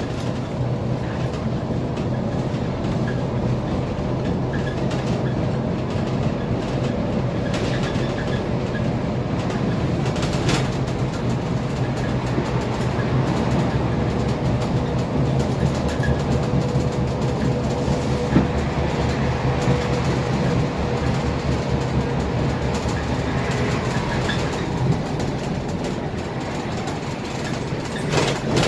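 Scania K320IA city bus on the move, heard from the front of its cabin: a steady low engine drone with road rumble and light rattles.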